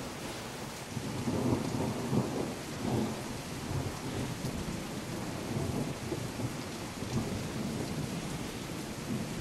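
Steady rain falling, with low rumbling thunder that swells a second or two in.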